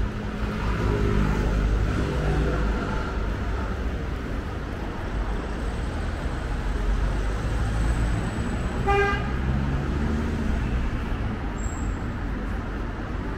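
Road traffic passing on a city street, a steady rumble of engines and tyres. A single short car-horn toot sounds about nine seconds in.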